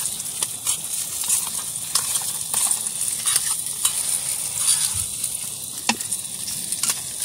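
Steady hiss of a portable gas canister stove burning under a pot, with spoons clinking and scraping on plates and metal mess tins.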